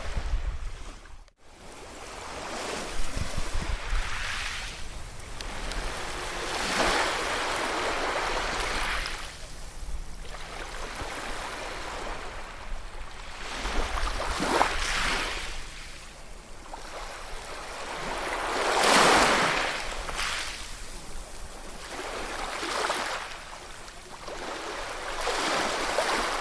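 Ocean waves breaking and washing in, each surge swelling and fading every few seconds, the loudest near two-thirds of the way through. A brief dropout to near silence about a second in.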